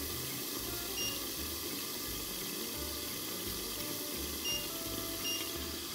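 Olive oil sizzling steadily in frying pans, with sliced garlic and dried chilli frying in one and hake pieces in the other.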